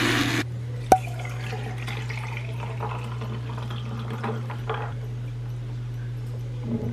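A handheld electric milk frother buzzes briefly and stops, and a sharp click follows about a second in. Then coffee is poured from a French press into a glass, followed by frothed milk poured on top: liquid pouring and splashing into the glass.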